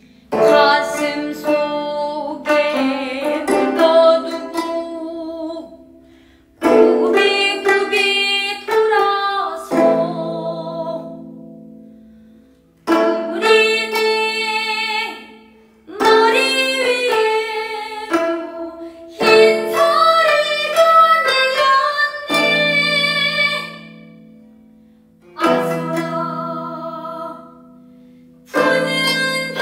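Two gayageum, Korean plucked zithers, played in phrases that each open with sharp plucks and fade away over a few seconds, while a woman sings over them in Korean traditional style (sori).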